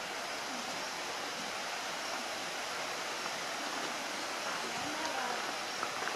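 Steady rush of flowing river water, an even hiss throughout.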